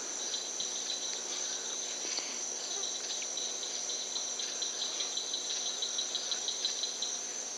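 Night insect chorus of crickets: a steady high-pitched trill with a faster pulsing chirp a little lower, the pulsing standing out more in the second half.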